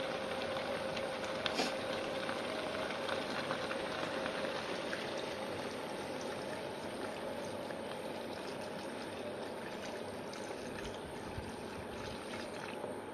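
Water pouring in a steady stream into a wok of sautéed papaya pieces, with a short knock about one and a half seconds in.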